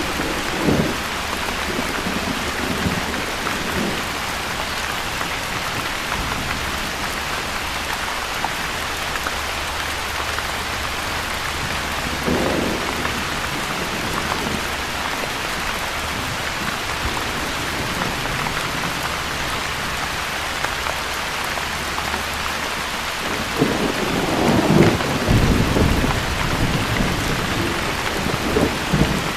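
Steady rain falling, with thunder rumbling: a short low roll about twelve seconds in and a longer, louder one starting near the end.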